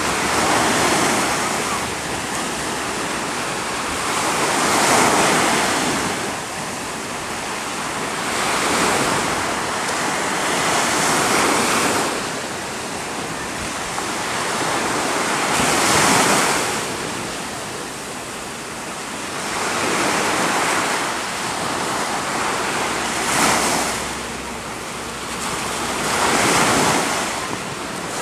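Ocean surf: small waves breaking and washing in, the rushing noise swelling and fading every few seconds as each wave breaks, with wind on the microphone.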